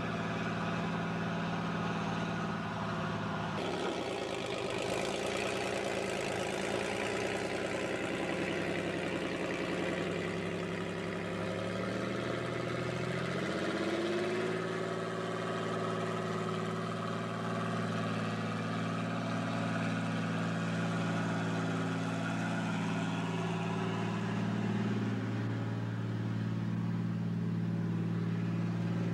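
Cummins 220 diesel engine of a four-axle truck-mounted Lima 65-T shovel's carrier running as the machine is driven. It runs steadily, then its pitch rises about halfway through and holds at the higher speed.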